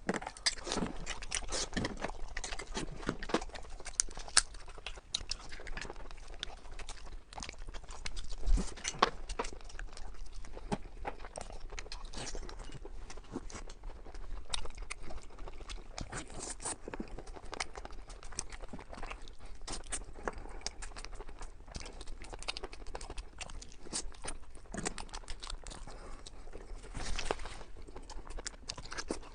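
Close-miked eating: a person chewing and biting food, with a dense run of wet smacks and crisp crunchy clicks.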